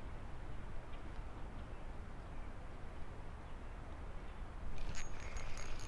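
Low, even rumble of wind on the microphone beside a pond. About five seconds in, a spinning reel starts being cranked: a fast, rattling clicking with a thin high whine.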